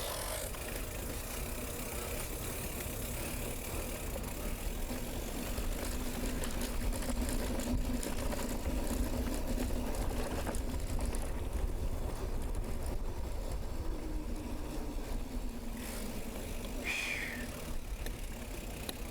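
Wind rumbling on the microphone of a moving mountain bike, with a faint vehicle hum that swells in the middle and fades. There is a brief high squeak near the end.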